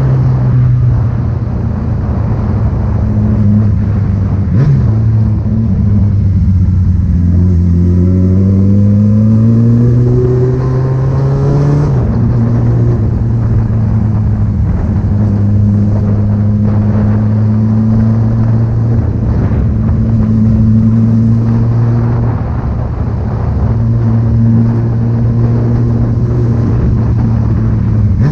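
Vehicle engine running loud and steady, then accelerating with a rising pitch for several seconds before the pitch drops sharply at a gear change just before the halfway point, then holding a steady cruise.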